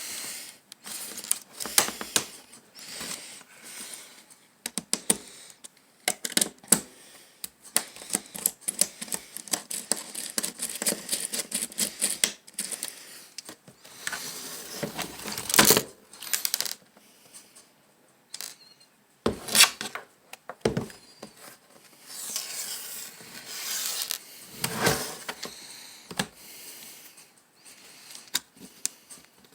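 Laptops and loose hard plastic and metal parts being handled and set down: irregular clicks, taps, rattles and rubbing, with a few louder knocks.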